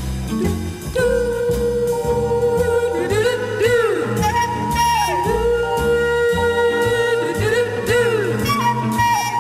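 Music: a long held melody line with sliding pitch bends, over a bass line that steps steadily from note to note.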